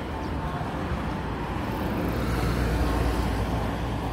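A road vehicle passing by: a low rumble that swells past the middle and eases off near the end.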